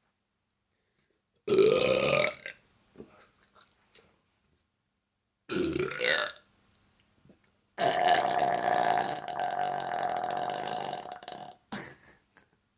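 A woman burping: two short burps a few seconds apart, then one long belch of nearly four seconds, followed at once by a brief short one.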